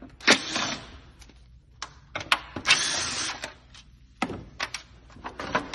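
A tool working on the two 10 mm bolts that hold the intake: two short bursts of rapid metallic whirring, one about a third of a second in and a longer one near the middle. Several sharp single clicks follow near the end.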